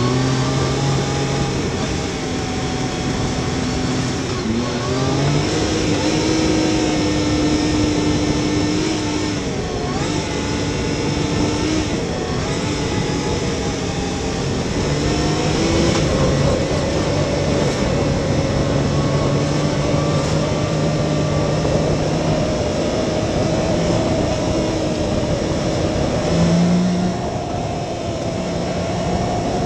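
Yamaha YXZ1000R side-by-side's three-cylinder engine running under load while the machine speeds up along a dirt trail. Its pitch holds for a few seconds at a time, then rises or steps to a new pitch, over steady tyre and chassis noise.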